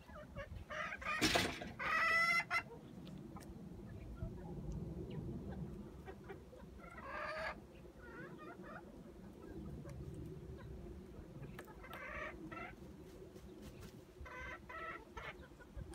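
Asturian hens clucking and calling in short bouts. The loudest call comes near the start, just after a sharp noise, and a few shorter, fainter calls follow through the rest.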